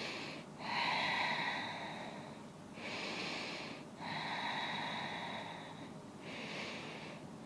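A woman breathing deeply and audibly while holding downward-facing dog: about three slow breath cycles, shorter breaths of about a second alternating with longer ones of about two seconds, with brief pauses between them.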